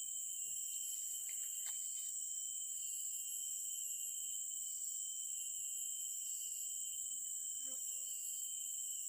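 Chorus of tropical insects: a steady high-pitched drone, with a second high layer that pulses on and off every second or two. A faint short call sounds near the end.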